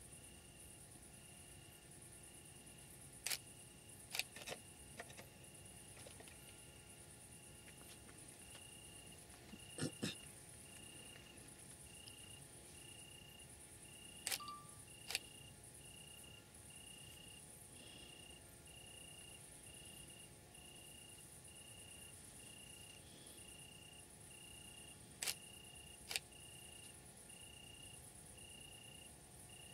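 Faint night insect chorus of crickets: a steady high-pitched trill with a regular chirp about once a second. A few sharp clicks stand out above it, in pairs about 3 to 5 seconds in, about 10 seconds in, about 14 to 15 seconds in and about 25 to 26 seconds in.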